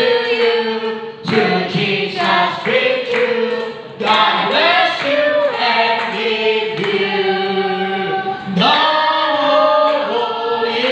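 Group of voices singing a slow worship song in long held notes, with short breaks between phrases.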